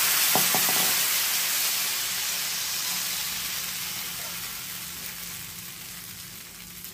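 Thin rice batter for ghavan sizzling on a hot tawa greased with ghee, just after being poured. The sizzle is loudest at first and slowly dies down as the batter sets full of holes.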